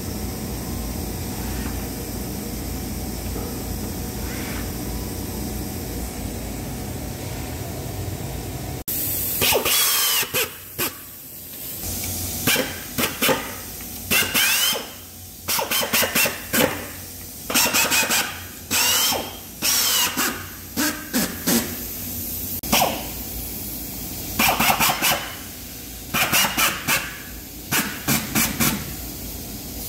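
A steady machine hum for about the first nine seconds. Then a pneumatic drill on an air hose runs in many short bursts of a second or less, each with a hiss of air and a rising whine as it spins up, driving screws into 18 mm birch plywood.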